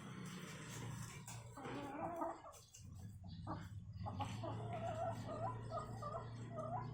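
Chickens giving wavering, warbling calls, once about two seconds in and again in a longer run through the second half, over a steady low hum.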